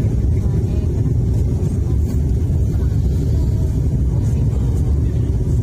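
Steady low rumble of a Wings Air turboprop airliner's engines and airflow in flight.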